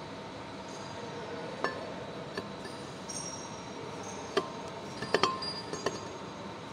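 Mild steel bush clinking against the brake pulley's bore as it is pushed in by hand: several sharp metallic clinks with a short ring, the loudest cluster about five seconds in. A steady machine hum runs underneath.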